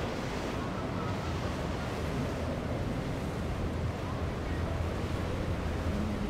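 Steady rush of wind and water with a low, steady boat-engine rumble underneath.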